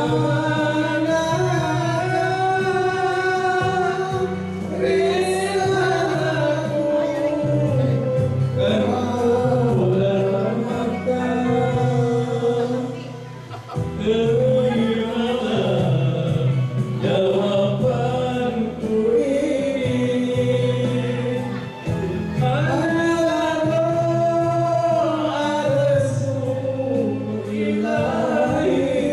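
A man and a woman singing a duet into handheld microphones over a backing track, amplified through a PA system.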